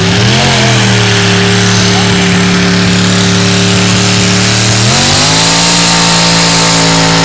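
Mud-bog truck engine held at high revs as the truck ploughs through the mud pit, loud and steady. About five seconds in it climbs to a still higher pitch and holds there.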